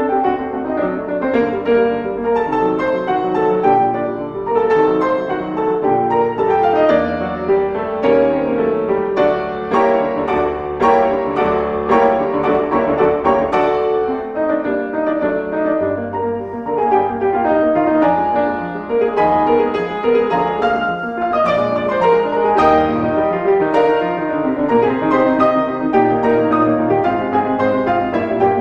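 Solo classical piano music, many notes played in quick succession.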